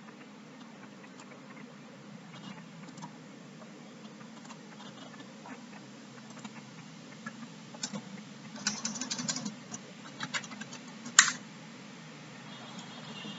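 Computer mouse and keyboard clicks: scattered light clicks, a quick run of keystrokes past the middle, and one sharp, louder click later on, over a steady low hum.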